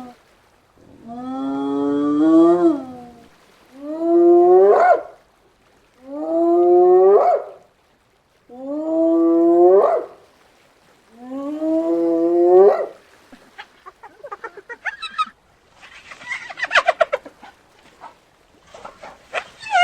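Hyena calling: five long whooping calls, each rising in pitch at its end, spaced a couple of seconds apart, then a rapid run of short, stuttering calls in the last third.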